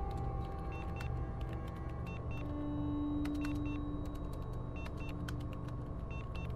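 Ambient film score: a low, gently pulsing drone under a few long held tones, with scattered sharp clicks and ticks.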